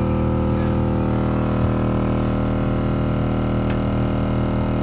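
Mitsubishi Fuso Fighter truck's A/C blower motor running, a steady loud drone made of several steady tones. This is the noise and vibration that is traced to the blower motor, which the mechanic suspects may be a bad bearing or something caught inside.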